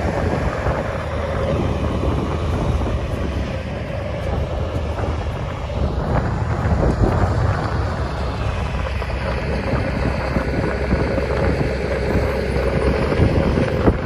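Diesel engines of heavy earthmoving machines, a wheel loader and a tracked bulldozer, running steadily with a low rumble and a faint steady whine, mixed with wind buffeting the microphone.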